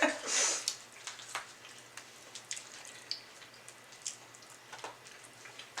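Close-miked eating of fried chicken: soft, scattered wet mouth clicks and smacks of chewing.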